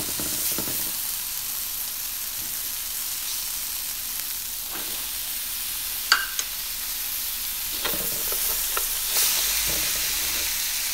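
Oil sizzling steadily as julienned carrots, onions and garlic fry in annatto oil in a large metal wok. A spatula knocks sharply against the pan about six seconds in and scrapes through the vegetables near the end.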